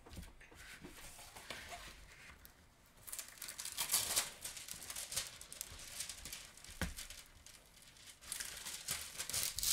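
Diamond painting canvas with its clear plastic cover film crinkling and rustling as hands turn it over and smooth it flat to push out the creases, in irregular bursts, with a single knock a little before the last bursts.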